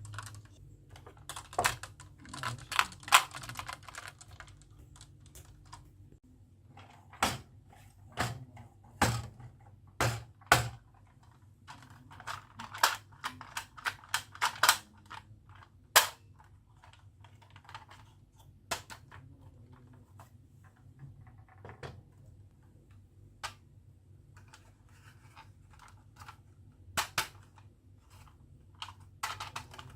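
Marbles clacking and rattling down a wooden HABA marble run: irregular sharp clicks, some in quick rattling runs and some as single loud knocks.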